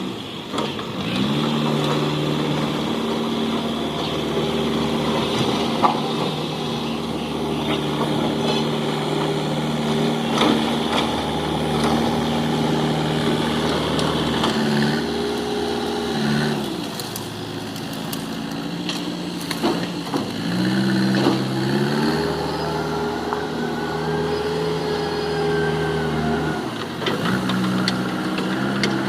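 JCB backhoe loader's diesel engine revving up under load and falling back toward idle twice: it rises about a second in, drops about halfway through, rises again and drops near the end. A few sharp knocks stand out over the engine.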